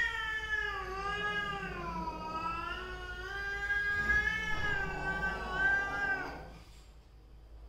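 Domestic cat yowling at another cat in a standoff: one long, drawn-out caterwaul that wavers up and down in pitch, an aggressive warning, breaking off about six seconds in.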